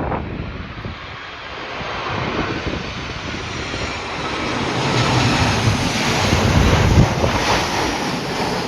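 Airliner flying low on its landing approach, its engine noise building to a peak about seven seconds in, with wind buffeting the microphone.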